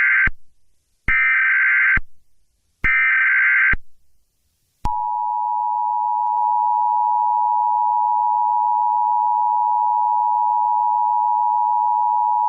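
Emergency Alert System tones. First come the last of one burst and two more of the screeching SAME data header, each about a second long with a second's gap between them. Then, about five seconds in, the steady two-tone attention signal (853 and 960 Hz together) begins, announcing the alert.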